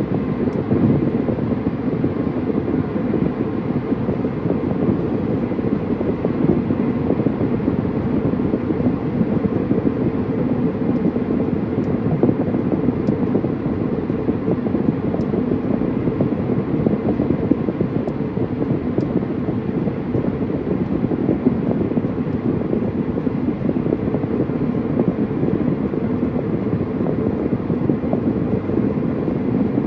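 Steady tyre and engine noise of a car cruising at freeway speed, heard inside the cabin: an even low noise that holds at one level throughout.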